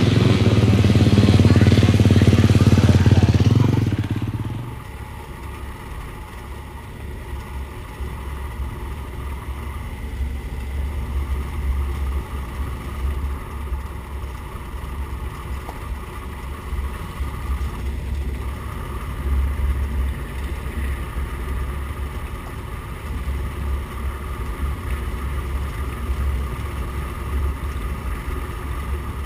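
Racing motorcycle engine, loud for the first four seconds and then dropping away. After that comes a steady low rumble with fainter motorcycle engine sound.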